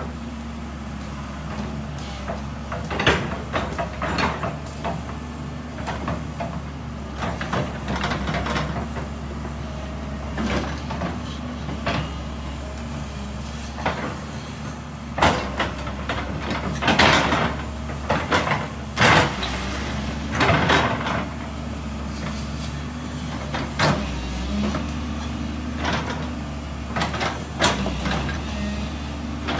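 JCB crawler excavator's diesel engine running steadily while it digs soil, with scattered metal clanks and scrapes from the bucket and boom. A cluster of louder clanks comes past the middle.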